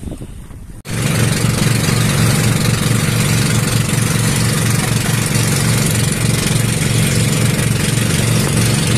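Inboard engine of a motorised bangka (Philippine outrigger boat) running steadily under way, loud, with a fast, even throb and a wash of wind and water noise. It starts abruptly about a second in.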